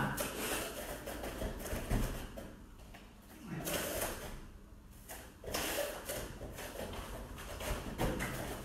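Bare feet shuffling, stepping and thudding on foam mats as two grapplers circle and tie up, in irregular bursts with a few sharper thumps.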